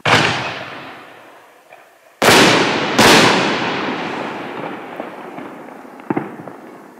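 Dual Exhaust consumer canister-shell firework cake (6-inch shells) going off: a loud boom at the start, then two more booms a little over two and three seconds in, each echoing away slowly. A smaller, sharper crack comes near the end.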